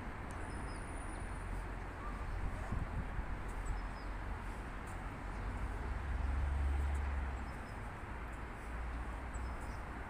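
Outdoor ambience: a steady low rumble that swells for about a second and a half around the middle, with a few faint, short bird chirps now and then.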